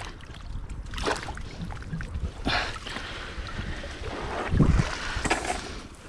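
Water splashing and streaming off a wet cast net as it is hauled up out of the sea by hand, in several sudden bursts. Wind rumbles on the microphone throughout, and a loud low thump comes a little before the end.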